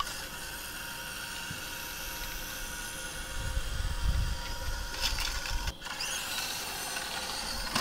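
Small RC truck's electric motor and gears whining steadily as it drives, with a short low rumble about three and a half seconds in.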